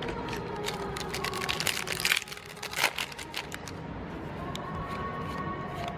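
Magic: The Gathering cards being handled and set down on piles on a table: a run of light clicks and flicks of card stock, busiest about two seconds in.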